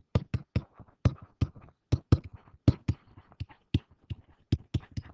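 A pen tip ticking and scratching on a writing surface as words are handwritten: quick, irregular sharp clicks, several a second, with faint scratching between them.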